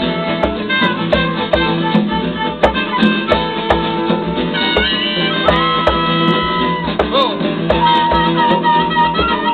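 Live acoustic music: a transverse flute playing a melody with long held notes over a strummed acoustic guitar, with a drum keeping a steady low beat.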